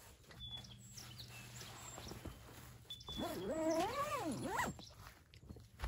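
A dog whining: one drawn-out call that rises and falls in pitch, ending in a quick upward squeak.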